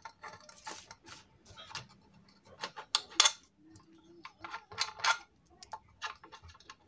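Loosened small metal screws being picked out of a ceiling fan's motor housing and handled, making a scattered series of light, sharp metallic clicks and clinks.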